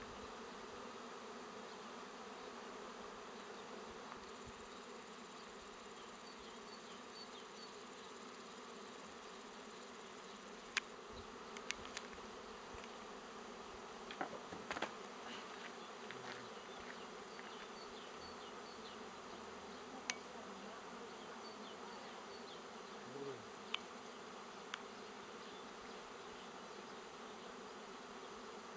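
A honeybee swarm buzzing: the steady hum of many bees flying at once. A few short, sharp clicks break in between about 11 and 25 seconds in.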